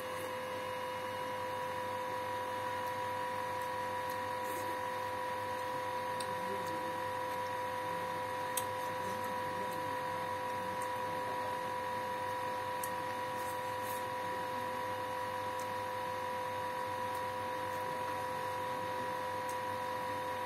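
Steady electrical hum with a constant whine, unchanging throughout, and a few faint clicks.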